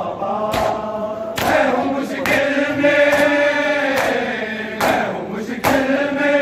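A crowd of men chanting a noha in unison, holding long sung lines, with sharp hand-on-chest matam slaps striking every second or so.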